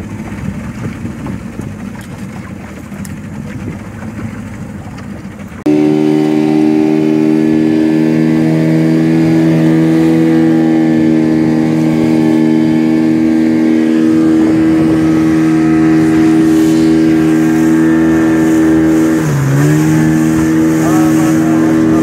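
Wind and sea noise, then, about six seconds in, a small fishing boat's outboard motor is suddenly heard running steadily at speed. Its pitch dips briefly and recovers a couple of seconds before the end.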